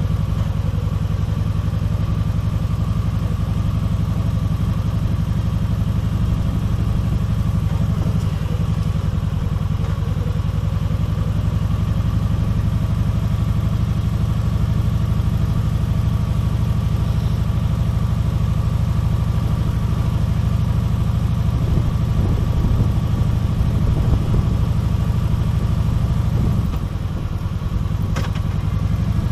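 Kawasaki Vulcan 1700 Voyager's V-twin engine running steadily as the motorcycle cruises slowly. Near the end the engine eases off briefly, and a single click follows.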